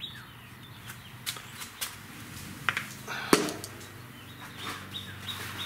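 Scattered light clicks and knocks of hands handling parts at a garden tractor engine's oil filter mount, the sharpest about three seconds in, over a steady low hum. Faint bird calls come in near the end.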